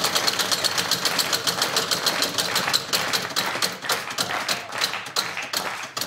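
Game-show prize wheel spinning, its rim pegs ticking past the pointer in a fast run of clicks, about ten a second at first, slowing after about four seconds as the wheel loses speed.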